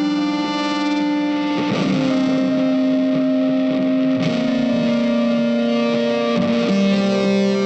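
Background music with long held notes that change pitch every two seconds or so.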